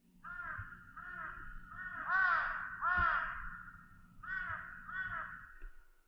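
A crow cawing: a run of repeated caws, a short pause, then two more caws shortly before the end.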